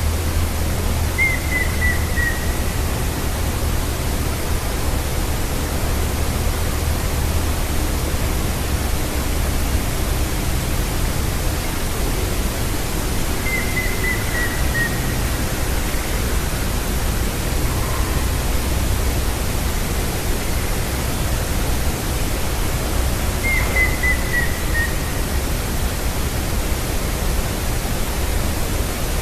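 Grey-headed woodpecker calling: three short series of clear notes, each run stepping down in pitch, about ten seconds apart. The calls are faint under a steady hiss and low rumble, which is the loudest sound.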